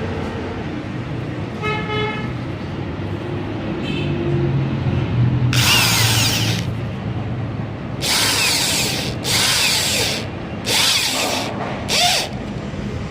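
Power tool working on steel in five short bursts, each a harsh high-pitched hiss lasting about half a second to a second. The bursts run from about five and a half seconds in to near the end, over a steady low hum.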